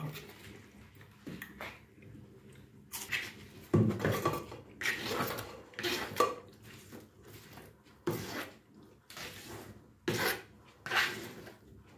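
Kitchen knife chopping napa cabbage on a plastic cutting board, with the blade scraping the cut pieces across the board. The chopping and scraping strokes come one by one, unevenly spaced, about a second apart.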